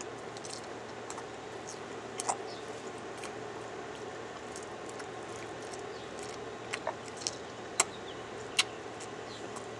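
Open-mouthed gum chewing close to the microphone: scattered short, wet mouth clicks and smacks, most of them in the second half, over a steady low background hum.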